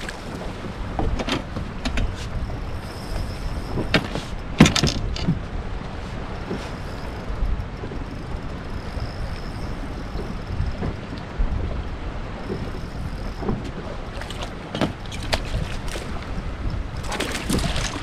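Steady wind and water noise around a small fishing boat at sea, with a few sharp knocks about four seconds in and again near the end.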